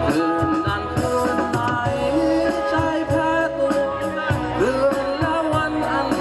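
A band playing a song: a steady drum beat with regular cymbal ticks under a held melody line that slides between notes.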